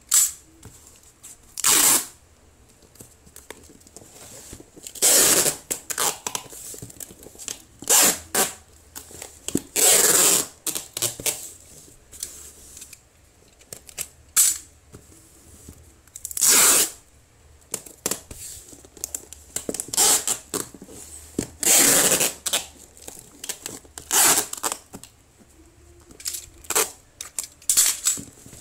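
Brown packing tape being pulled off the roll in a dozen or so loud ripping strips, each under a second, with the cardboard box being handled and turned between pulls.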